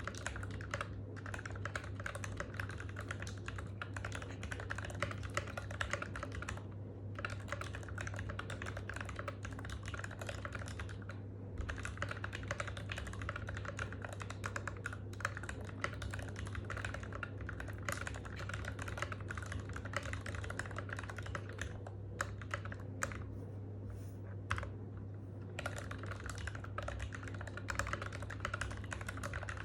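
Fast, continuous typing on an NK65 v2 aluminum-case mechanical keyboard with Krytox-lubed Gateron Ink Black V2 linear switches and Cherry-profile PBT keycaps, with a few brief pauses between bursts of keystrokes. A steady low hum lies underneath.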